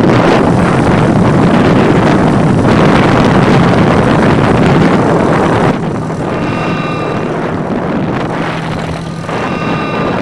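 Wind rushing over a phone's microphone while riding on a moving motorcycle, with the motorcycle's engine running underneath. The rush eases somewhat about six seconds in.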